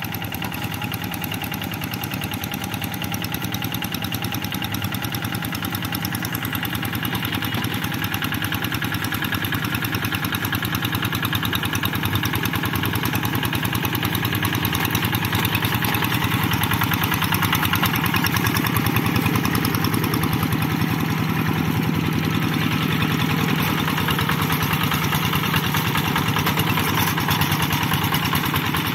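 Kubota single-cylinder diesel engine of a two-wheel walking tractor running steadily under load while it plows a flooded rice paddy. It grows gradually louder over the first two-thirds as the tractor comes closer, then holds steady.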